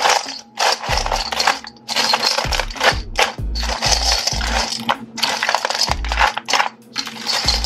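Dry, uncooked rigatoni rattling and scraping against a metal mixing bowl as it is stirred into a cheese mixture with a silicone spatula. It comes in repeated strokes about a second long with short pauses between.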